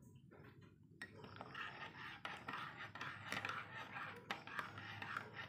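Metal spoon stirring coffee in a mug: a light, steady scraping with small clinks, starting about a second in.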